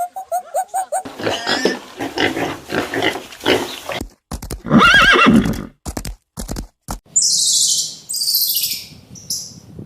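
A horse whinnying, heard in several short spliced clips. The loudest is a neigh about five seconds in, followed by several breathy hissing bursts. It opens with a quick run of short chirping calls that carry over from the previous animal.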